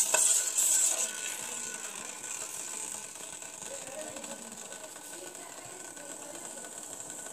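A metal spoon stirs and scrapes against a steel pan of sugar syrup, mixing in the food colour, for about the first second. After that there is a steady hiss from the pan heating on the gas flame.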